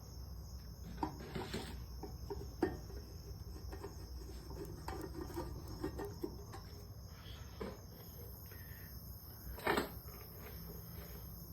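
Light clicks, scrapes and small metal knocks of hardware being handled and screwed in while a ceiling fan's light-kit mounting plate is fitted, with one louder knock about two-thirds of the way through. A steady high-pitched chirring hum runs underneath.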